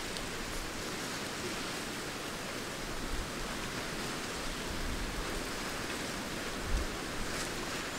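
Steady, even hiss of background noise, with a brief low thump about three-quarters of the way through.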